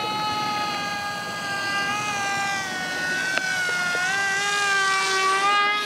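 Small RC model plane's electric motor and propeller whining in flight: a steady high-pitched tone whose pitch sags a little around the middle and climbs back.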